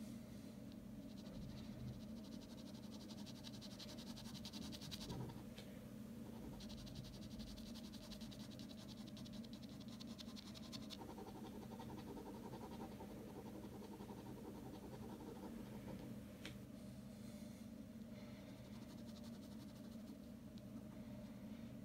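Ballpoint pen scratching faintly on paper in quick, short shading strokes, in two runs of a few seconds each in the first half, over a steady low hum.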